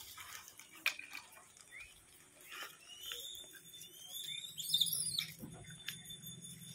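Plastic bag crinkling and rustling in his hands as biscuits are taken out, with short crackles throughout. Several high chirping calls cut through, loudest in a brief cluster about halfway in.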